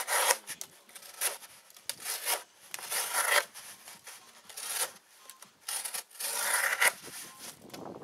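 Victorinox Hunter XS locking blade slicing through corrugated cardboard in a series of scraping strokes, about one a second.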